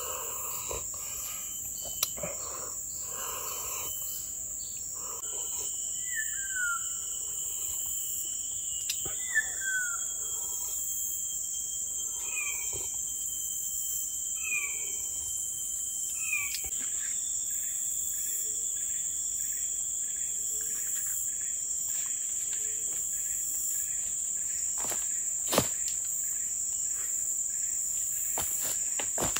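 Steady high-pitched chorus of forest insects, with a bird calling a series of short falling whistles through the middle, and a few sharp clicks.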